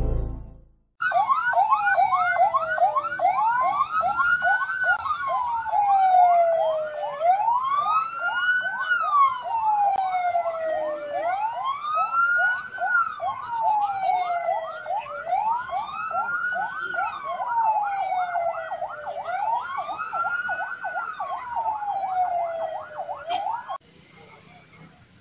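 Police vehicle sirens: a slow wail rising and falling about every four seconds over a fast, rapidly repeating yelp. The sirens cut off suddenly near the end, leaving faint background. Intro music fades out in the first second.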